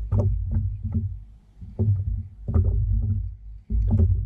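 Knocks and rubbing on a fishing kayak, roughly three a second, over a steady low rumble.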